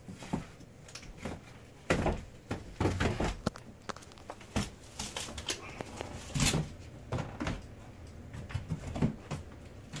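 Black cheesecloth dust cover being ripped off the underside of a box spring: an irregular run of tearing and fabric rustling with sharp snaps.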